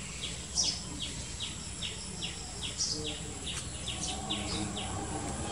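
A small bird chirping in a rapid series of short, high, falling notes, about four a second, over a steady low background rumble.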